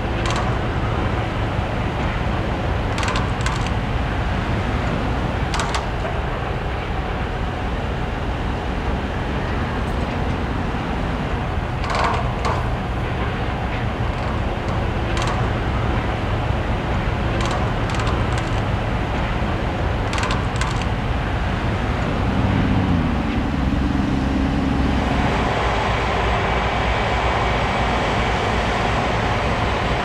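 Construction site machinery: a steady low engine rumble with scattered sharp knocks of steel work. About three-quarters of the way through, a motor changes pitch for a few seconds, and then a louder machine keeps running.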